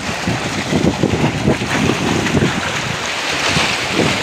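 Wind buffeting the microphone, with sea waves washing against shoreline rocks.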